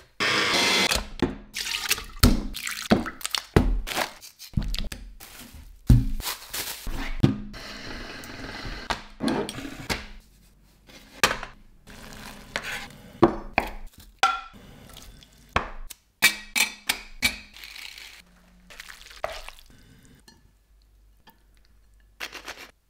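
A quick series of close-miked food-preparation sounds: liquid pouring into a stainless steel mixing bowl at the start, then separate knocks, clicks and handling noises, among them fresh pasta dough running through a hand-cranked pasta machine's cutter and tongs lifting fettuccine onto a plate. It goes almost quiet near the end.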